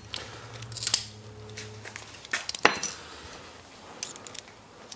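Small screws and hand tools clinking and tapping on a workbench as they are handled: a few separate sharp metallic clicks, the sharpest a little over two and a half seconds in.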